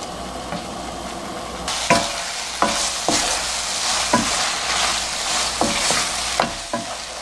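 Boneless chicken feet in thick chili sauce sizzling in a nonstick frying pan over low heat as the sauce reduces, while a wooden spatula stirs and scrapes the pan about once a second. The sizzle gets louder a couple of seconds in.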